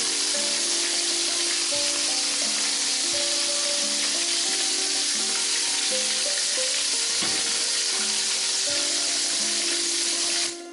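Whole red tilapia deep-frying in plenty of hot oil in a wok: a loud, steady sizzle that cuts off abruptly near the end. Soft background music plays underneath.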